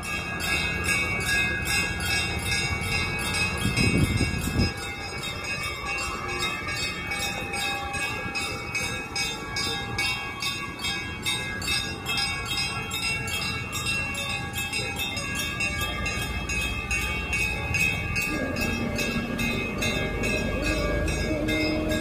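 Motor boat's engine running steadily under way, with an even, fast rhythmic chugging, and a short louder low rumble about four seconds in.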